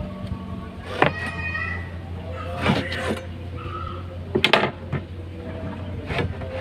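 Wooden parts of a homemade table saw's crosscut sled and fence being handled: a handful of sharp knocks and a short squeak of sliding parts, over a steady low hum that starts about a second in.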